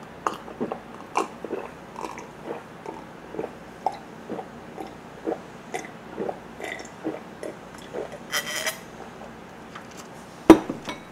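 A man gulping down a drink from a glass, soft swallows about twice a second for around eight seconds, then a short breathy sound. A single sharp knock near the end.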